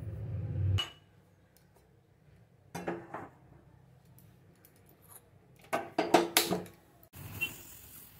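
Stainless-steel pots and utensils clinking and clattering: a low hum cuts off with a click about a second in, then two clusters of knocks follow, the louder one about six seconds in, and a short hiss comes near the end.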